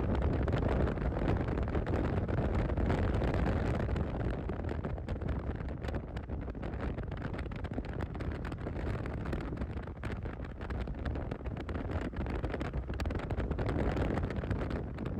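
Steady rush of wind on the microphone of a moving motorcycle, with a low rumble of engine and road noise underneath.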